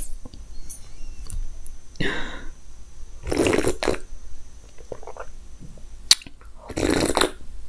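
Close-miked drinking of juice from a glass mug: slurping sips and swallows, with two louder sips about halfway through and near the end, and a small click just before the second.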